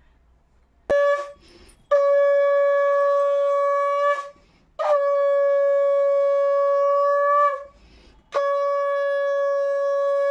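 Conch shell (shankha) blown in four blasts: a short one about a second in, then three long, steady single-note blasts of a few seconds each with short breaths between.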